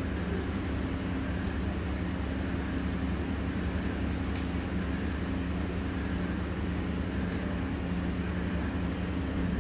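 Steady low mechanical hum with a few faint, short clicks.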